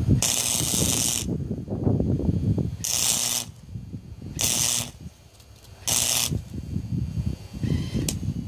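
Electric welding arc crackling and hissing on cast iron, in four short bursts of about half a second to a second each as beads are laid.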